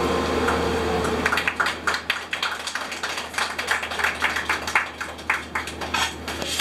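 A small audience clapping at the end of a song, starting about a second in, just after the band's last chord fades out.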